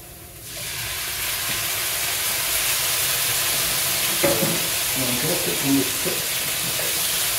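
Chopped onion and tomato sizzling in oil in a nonstick frying pan, a steady hiss that starts about half a second in, as the tomato's moisture cooks off. A wooden spoon stirs the pan.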